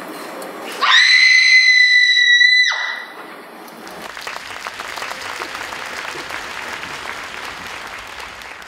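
A loud, shrill note swoops up about a second in, holds steady for nearly two seconds, then cuts off suddenly. It is followed by audience applause as the stage goes dark.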